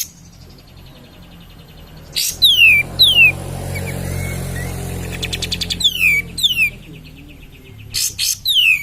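Kapas tembak bulbul singing: sharp clicking chips and quick down-slurred whistles in pairs, with a fast rattling chatter in the middle. It is lure song used to rouse other kapas tembak.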